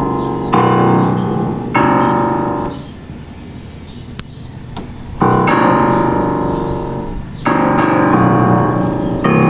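Piano playing slow, full chords, each struck and left to ring for a second or two, with a quieter stretch in the middle.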